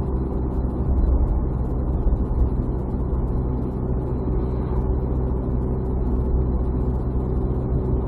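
Car driving at a steady cruising speed of about 70 km/h, heard from inside the cabin: a steady low drone of engine and tyre-on-road noise.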